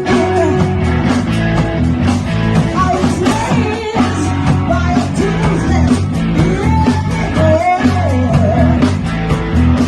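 Rock band playing live, with a bending lead melody over a steady beat.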